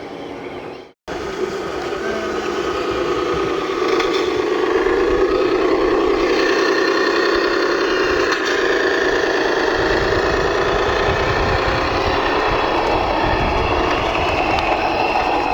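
Radio-controlled model construction machinery running with a steady whine whose pitch wavers slightly, after a brief cut-out about a second in.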